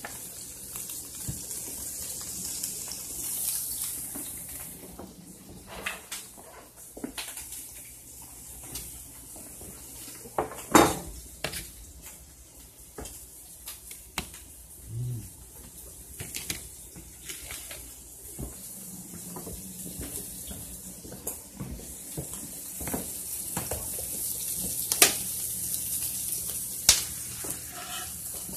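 Kitchen clatter: pots, pans and utensils clinking and knocking, with a few sharp knocks (the loudest about 11 seconds in and twice near the end) over a steady high hiss.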